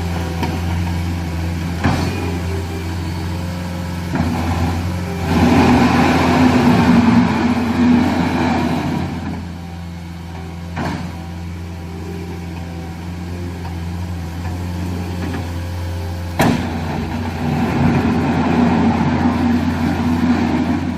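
Caterpillar 236D skid steer loader's diesel engine running steadily, growing louder for a few seconds about five seconds in and again near the end, with a few sharp knocks.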